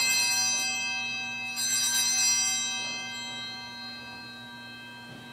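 Altar bells rung at the elevation of the consecrated host: a ringing carried over from just before, a fresh shake of the bells about a second and a half in, then a long fading ring.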